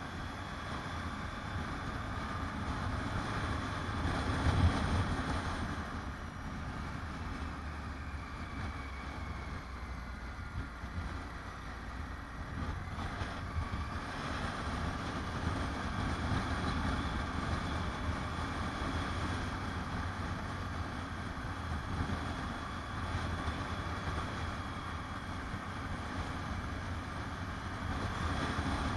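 Motorcycle under way: its engine running steadily under a constant rush of wind noise on the bike-mounted camera's microphone, briefly louder about four seconds in.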